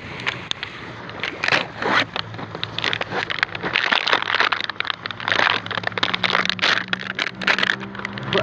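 Plastic toy packaging being handled and pulled open: a run of irregular crinkling, rustling and scraping. A low steady hum joins from about five seconds in.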